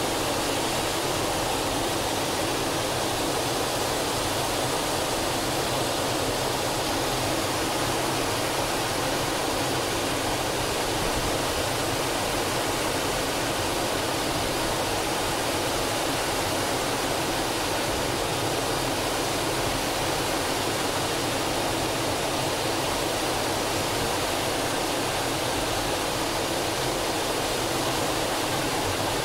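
Steady rushing cockpit noise of an L-39 Albatros jet trainer in flight: its Ivchenko AI-25TL turbofan and the airflow over the canopy, even and unchanging.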